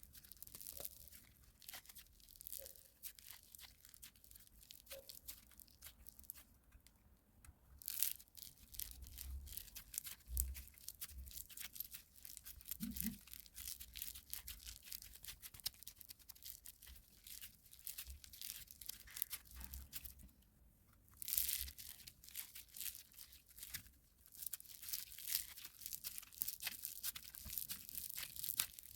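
Kinetic sand being worked: cut, pressed and crumbled, making a fine, dry crackling and crunching. There are louder bursts about eight seconds in and again around twenty-one seconds.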